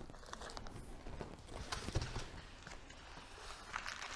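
Scattered light knocks and clicks of unboxed tool parts and packaging being moved about on a workbench, the loudest knock about two seconds in.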